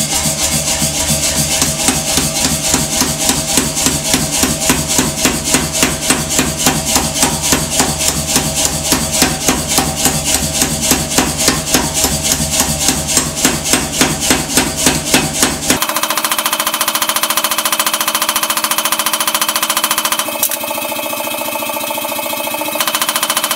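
Power hammer striking a red-hot steel bar through a hand-held top tool in a fast, even run of blows. About sixteen seconds in, the blows stop and a steadier machine running sound carries on.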